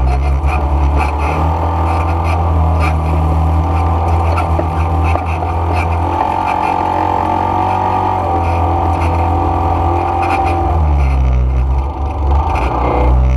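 ATV (quad bike) engine running on an off-road ride, its note shifting about six seconds in and again near the end as the throttle changes.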